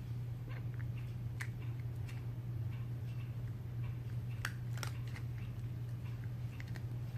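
A cat crunching small dry treats, a scatter of quick irregular crunches and clicks, over a steady low hum.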